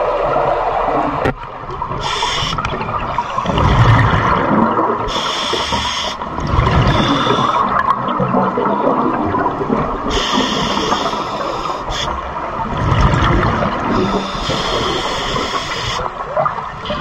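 Scuba regulator breathing underwater: a few breaths, each a hiss of inhaled air followed by a deep bubbling rumble of exhaled bubbles, over a steady wash of water noise.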